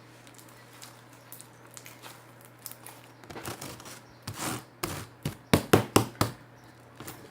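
Slime being squeezed and pressed by hand, giving a quick run of about seven sharp clicks and pops over two seconds, the loudest near the end.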